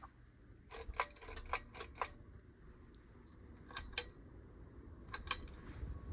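Ceiling fan pull-chain speed switch being pulled: quick sharp clicks in three short groups, the switch being stepped through its speeds.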